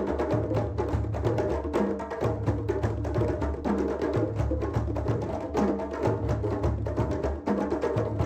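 Background music with busy, knocking percussion over a bass figure that repeats about every two seconds.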